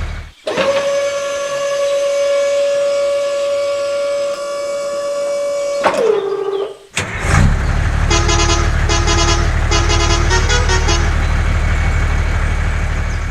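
A vehicle horn sounds one long, steady note for about five seconds and drops in pitch as it cuts off. After a short pause a low engine rumble starts, with several groups of short beeping tones over it.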